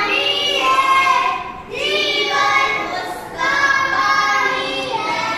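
A group of young children singing a nursery rhyme together in unison, in short phrases with brief breaks between them.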